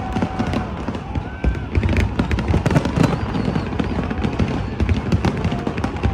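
A fireworks display going off in rapid succession: many sharp crackling bangs over a continuous low rumble of shell bursts.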